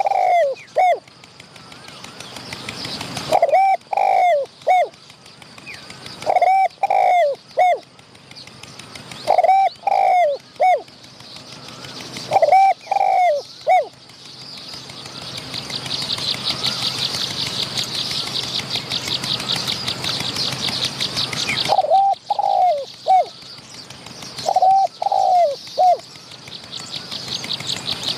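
Spotted doves cooing: short phrases of about three low, falling coo notes, repeated roughly every three seconds. In the middle the cooing pauses for several seconds while a high, fast-pulsing buzz rises and then stops, and the cooing resumes near the end.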